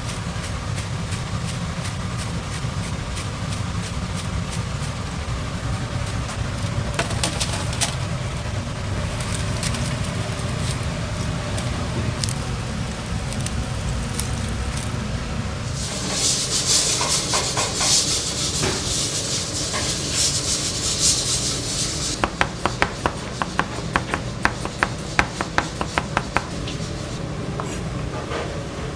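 Kitchen cooking noise over a steady low rumble: a loud burst of sizzling about halfway through that lasts several seconds, then a quick run of sharp knocks, like a utensil striking a pan or board.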